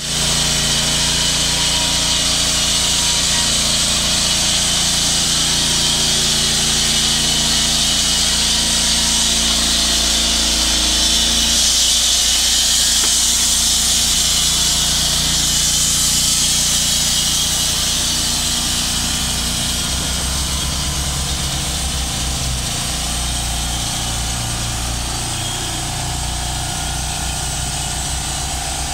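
Portable bandsaw mill sawing lengthwise through a squared log: its engine runs steadily under load under the hiss of the band blade in the wood. About two-thirds of the way through the sound eases a little and the engine's note changes.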